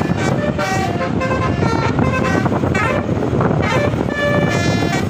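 Bus telolet horn, a multi-trumpet musical air horn driven by a melody module, playing a tune of short held notes that change pitch several times a second, over heavy vehicle noise.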